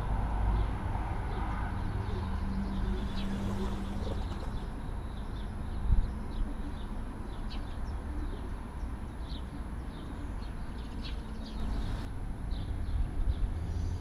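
Steady low rumble of distant heavy machinery, with a low hum for a few seconds near the start and a single thump about six seconds in. Small birds chirp over it.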